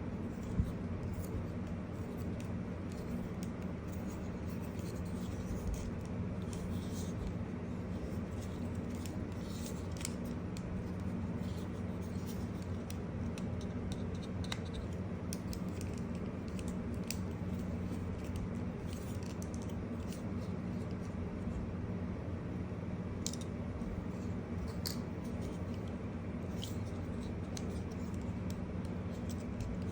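Scattered light scratches and clicks from unboxing: handling the packaging, possibly cutting it. These sit over a steady low hum.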